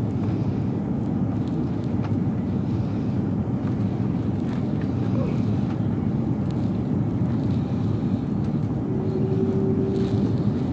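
Steady low rumble of engines and rushing air inside a jet airliner's passenger cabin, with a short steady whine joining in a little before the end.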